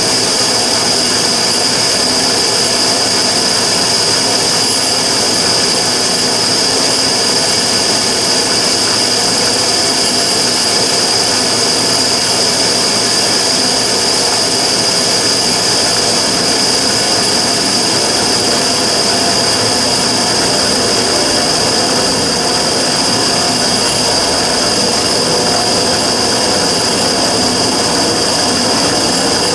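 Immersion-tube burner firing steadily, an even rushing noise with a constant high-pitched whistle over it: the abnormal noise the burner is making.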